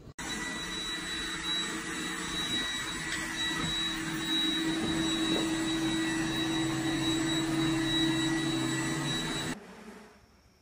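Robot vacuum cleaner running: a steady motor hum with a high whine over it, which stops suddenly near the end.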